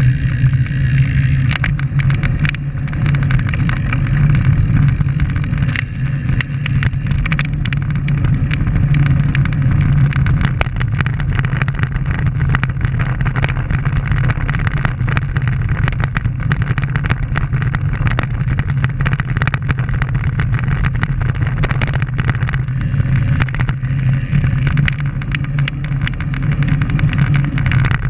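Wind rushing over a bike-mounted camera's microphone and road-bike tyres rolling on rough asphalt: a steady low rumble with frequent small rattles and knocks from road vibration.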